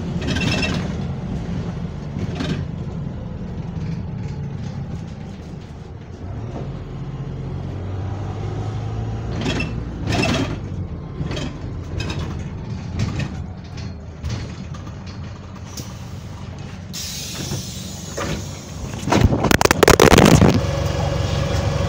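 Bus engine and drivetrain running under way, heard from inside the passenger saloon: a steady low drone with the deep note of a burst exhaust, and scattered knocks and rattles from the bodywork. About nineteen seconds in comes a loud rustle of the phone being handled.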